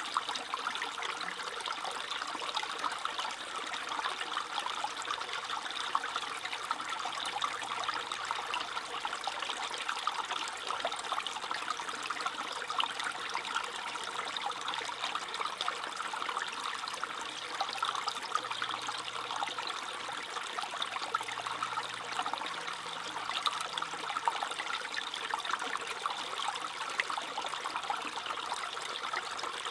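Small stream trickling and babbling steadily over stones, with many small splashes and gurgles.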